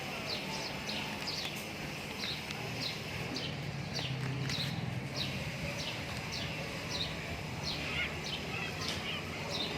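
A bird calling over and over: short high chirps that slide down in pitch, about two a second, over a steady low outdoor hum.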